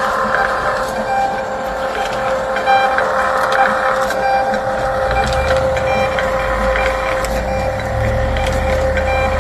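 A small machine running with a steady whine, joined by a low rumble from about halfway through.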